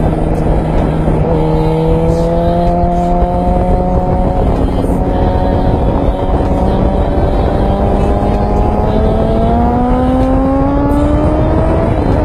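Suzuki GSX-R1000's inline-four engine under hard acceleration on track, its note climbing in pitch and stepping down at a couple of upshifts, with heavy wind rush over the onboard camera.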